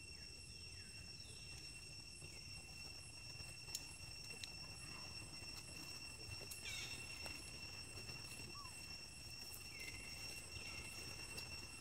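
Faint outdoor ambience: a steady high-pitched insect drone, with about six short falling chirps scattered through it and a few soft clicks.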